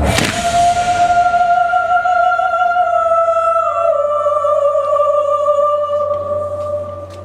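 Electro-opera show music: a sudden crash at the start, then one long operatic held note that steps down slightly in pitch about halfway through and fades out near the end.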